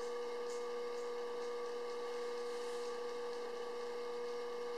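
Steady hum: one constant mid-pitched tone with fainter steady tones above and below it.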